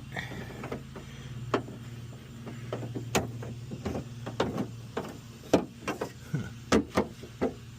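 Irregular clicks and knocks of metal door-handle parts and a bolt being handled and fitted inside a truck door, as the bolt fails to start. A steady low hum runs underneath.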